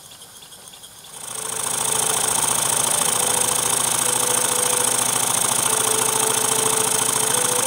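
A small model mill engine starts up about a second in and then runs steadily, with fast, even exhaust beats and a hiss, driving a small generator.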